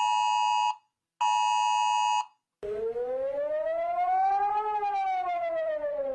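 Emergency alert alarm: a steady two-tone attention signal sounds in two short bursts with a gap between them, then a siren tone slowly rises in pitch and falls back.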